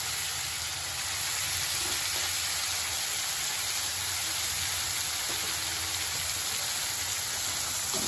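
Chopped onion, green chilli, capsicum and tomato sizzling in hot oil in a steel kadhai, a steady hiss as the onion browns.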